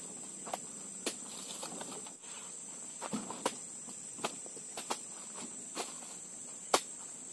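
A steady high-pitched buzz of insects runs under irregular thuds and sharp knocks as oil palm fruit bunches are handled and tossed into a pickup truck's bed. The loudest knock comes near the end.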